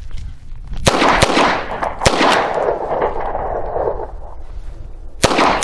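Smith & Wesson Model 60 revolver firing .38 Special rounds: four shots, three close together in the first two seconds and a fourth about three seconds later, each followed by an echo.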